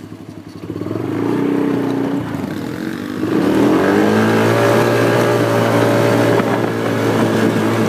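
ATV engine heard from on board, picking up speed about a second in, revving higher after about three seconds, then running steadily at speed.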